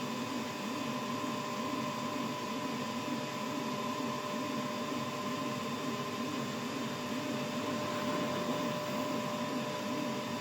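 Gemstone-cutting CNC machine running: a steady motor hum with two constant whining tones over a lower pitch that wavers up and down in an even rhythm.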